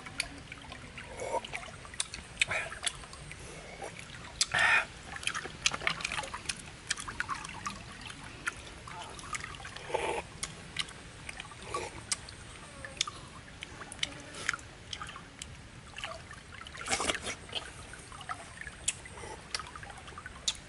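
Wet sucking and slurping as cooked river snails are sucked out of their shells, with many short, irregular wet clicks and smacks of the lips.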